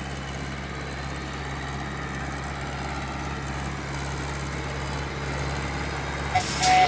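Tractor diesel engine running steadily, a low even hum that holds its pitch. Electronic music comes in about six seconds in.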